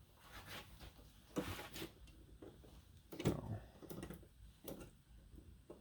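Faint, scattered clicks and light knocks of pliers being handled in a tool cart drawer, a few taps over several seconds.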